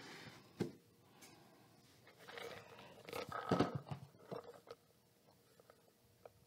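Faint tableside handling: a paper napkin rustling as it is unfolded and laid down, a few knocks as a stainless steel tumbler is picked up, the loudest about three and a half seconds in, then quiet sipping through its straw with small ticks.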